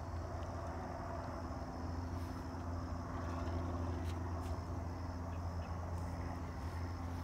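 Steady low rumble of outdoor background noise with a faint hum running through it, like distant traffic.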